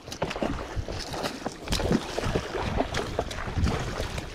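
Sea water splashing and sloshing irregularly against rocks, with wind buffeting the microphone.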